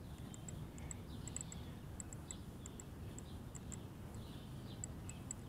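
Faint outdoor ambience: a low, steady rumble with scattered faint chirps of distant birds and sharp high ticks.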